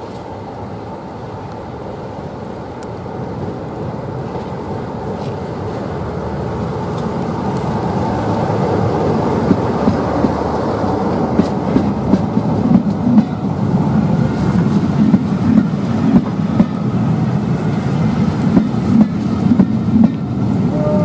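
Class 47 diesel locomotive with its Sulzer V12 engine running, growing steadily louder as it draws near and passes. Its train of coaches then rolls by, the wheels clattering rapidly over the rail joints.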